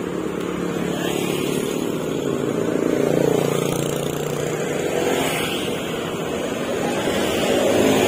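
Road traffic passing close by: motorcycle and car engines and tyre noise, swelling as vehicles go past about three seconds in and again near the end.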